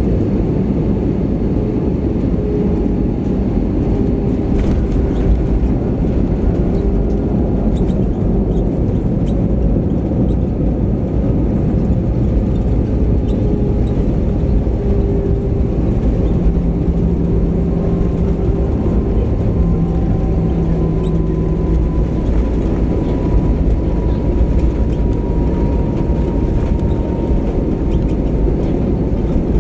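Cabin noise of an Airbus A320-200 on its landing roll: a steady, loud roar of engines, airflow and wheels on the runway, with faint engine tones slowly falling in pitch as the jet slows.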